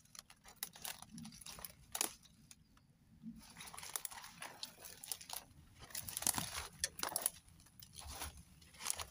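Footsteps crunching and crackling through dry fallen leaves and brittle twigs, irregular, with a sharp crack about two seconds in.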